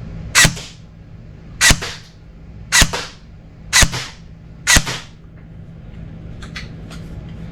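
Zion Arms PW9 Mod 1 airsoft electric gun (AEG) firing five single shots, about a second apart.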